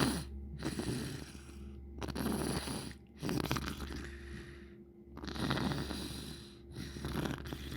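A person's wet, gurgly sniffles, a mucus-filled nose sniffed in about five times in a row, each lasting a second or so. A steady low hum runs underneath.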